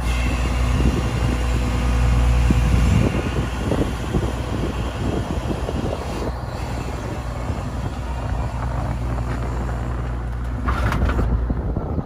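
Komatsu WA500-1 wheel loader's diesel engine idling steadily, a little louder for the first three seconds. A brief burst of noise near the end.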